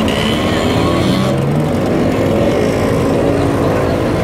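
Several classic motor scooters, Vespas among them, riding past at low speed, their small two-stroke engines running together in an overlapping drone, the notes rising and falling as riders ease on and off the throttle.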